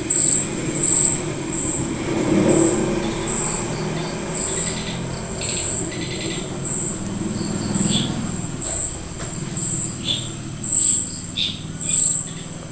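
Crickets chirping: a steady run of short, high-pitched chirps repeating about once or twice a second, with faint low rustles and knocks underneath.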